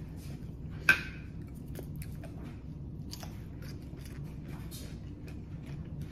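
Close-up chewing of a crunchy mouthful of som tam salad, with many small crunches. About a second in, one sharp clink of chopsticks against the ceramic plate rings briefly.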